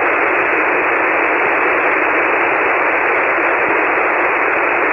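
Steady hiss of band noise (static) from a ham radio receiver tuned to 40-metre single sideband, with no voice on the signal. The hiss is cut off above the voice range by the receiver's sideband filter, so it sounds narrow and telephone-like.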